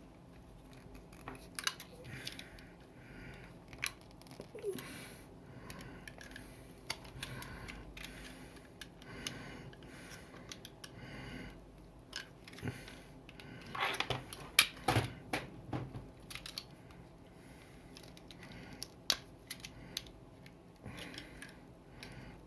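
An electrical wire being handled and its insulation stripped by hand: irregular snips, clicks and crackles, busiest about two-thirds of the way through.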